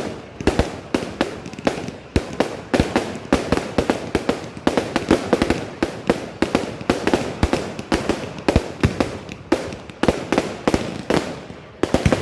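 Fireworks display going off: a rapid, irregular barrage of loud bangs and cracks, several a second, each with a short echoing tail.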